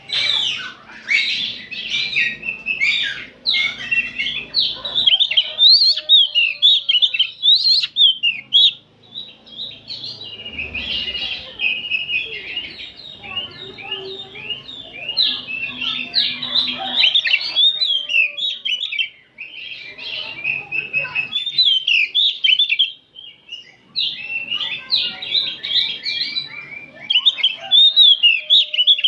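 A group of oriental magpie-robins singing together in a dense, busy chorus of rapid chirps, whistles and trills. The chorus drops briefly twice in the second half.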